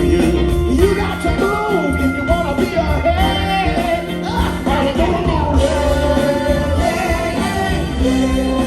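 Live funk band playing with lead vocals over bass, drums and horns.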